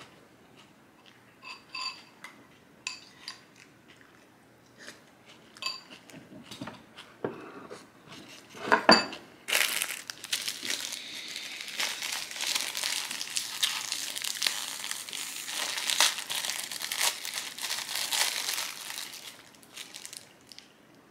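A few sharp clinks and clicks of utensil on dishware, a louder knock, then about ten seconds of dense, close crinkling and crunching while food is eaten.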